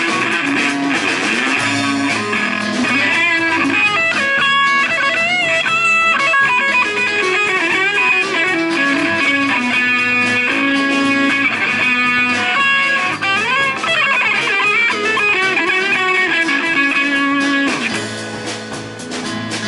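A live band playing a rock song, with electric guitar to the fore and a drop in level near the end.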